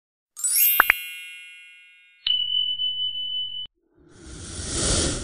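Subscribe-button animation sound effects: a sparkling chime with two quick mouse clicks about a second in, then a steady bell-like tone held for about a second and a half. Near the end comes a whoosh that swells and fades.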